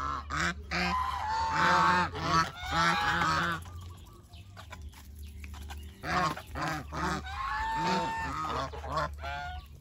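A flock of domestic geese honking, many short honks overlapping, with a lull of about two seconds near the middle before the honking picks up again.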